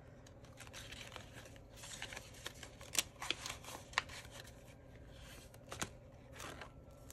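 Paper banknotes rustling and sliding as they are handled and tucked into a clear plastic binder envelope, with a few sharp clicks and taps, the loudest about three and four seconds in.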